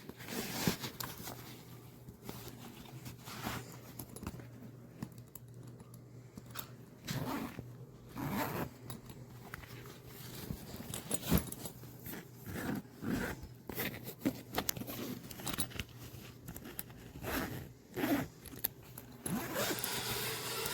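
Zippers on a laptop backpack being pulled open and shut in a run of short, irregular strokes, mixed with the scrape and rustle of the bag being handled.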